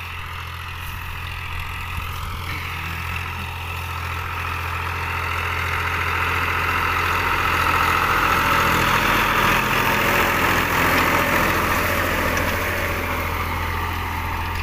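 Powertrac 434 tractor's three-cylinder diesel engine running steadily as it pulls a disc harrow through the field, growing louder as the tractor comes close about eight seconds in and easing off a little near the end.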